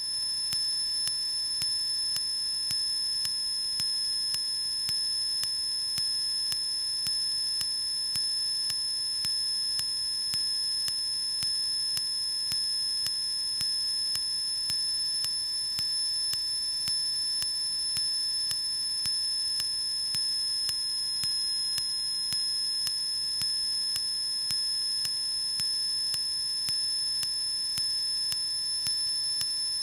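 Steady electrical whine from the Cessna 152's radio and intercom audio feed: several fixed high-pitched tones with a faint regular ticking and no speech on the frequency.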